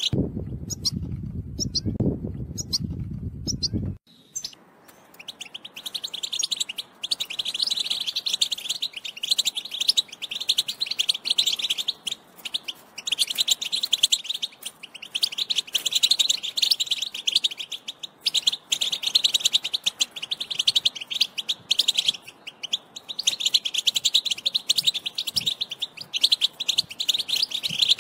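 European goldfinch singing a long, fast, tinkling twitter with short pauses. In the first few seconds the song breaks off and a low rushing noise takes its place, then the twittering resumes.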